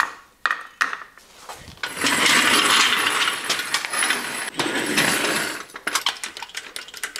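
Steel motorcycle scissor lift dragged across a concrete floor: a long scrape of about three and a half seconds, with metal clicks and clanks before it and as it is set under the bike.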